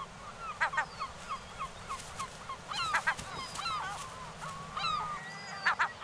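Gull chicks peeping: a run of short, high begging calls, each dropping quickly in pitch, with a few louder squeaky calls around the middle and again near the end.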